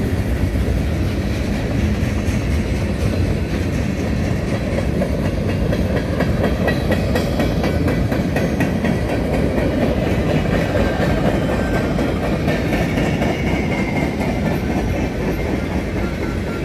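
Freight cars rolling past at speed: a steady rumble of steel wheels on rail with a rhythmic clickety-clack over the rail joints. Centerbeam lumber flatcars go by, then tank cars. A faint high thin whine comes in during the last few seconds.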